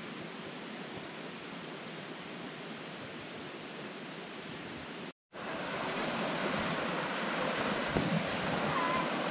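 Steady rush of river water; after a brief cut about five seconds in, louder rushing of shallow rapids running over rocks.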